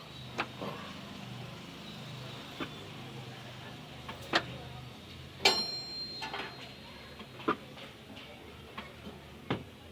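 Scattered metallic clinks and knocks of hand tools and metal parts during repair work on a car, about eight irregular strikes with a louder clang about five and a half seconds in that rings briefly.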